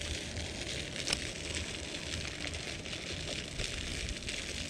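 Spinning rod and reel being cast and retrieved: a sharp click about a second in, then a steady light crackling hiss as the reel is wound.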